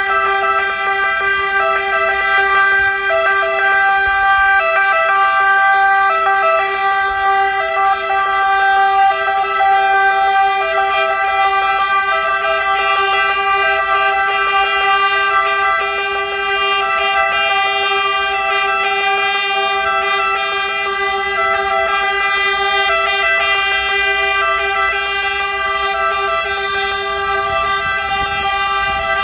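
Fire engines sounding their horns and sirens together, a long unbroken blare of several steady tones, sounded in salute.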